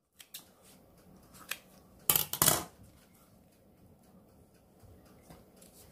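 Kitchen scissors cutting through a toasted sliced-bread pizza, with two loud snips close together about two seconds in and a few small clicks around them.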